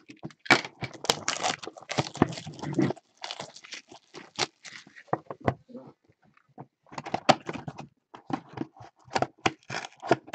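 Plastic shrink wrap being torn off a trading card retail box and crinkled, and the cardboard box pulled open, in irregular crackling rustles and clicks with a short pause about six seconds in.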